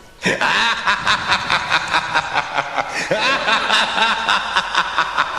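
An audience of schoolchildren clapping, with a few voices calling out over the applause.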